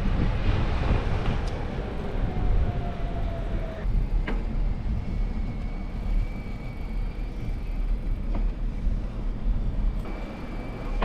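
Street noise heard from a moving bicycle: low rumble of tyres and wind on the microphone, with a few sharp clicks and rattles. A falling whine comes a few seconds in, then a thin steady high tone from about halfway.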